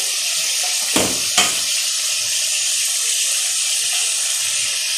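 Chicken breast pieces sizzling steadily in hot oil in an aluminium kadhai, with chilli powder and turmeric just added. There are two short knocks a little after a second in.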